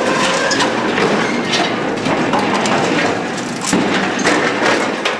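Twisted structural steel and rubble being dragged and shifted: a loud, continuous grinding and scraping of metal with many sharp knocks and cracks.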